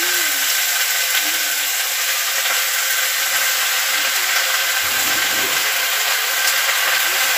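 Chopped vegetables and garlic sizzling in hot mustard oil in a metal karahi on a gas burner: a steady, even hiss.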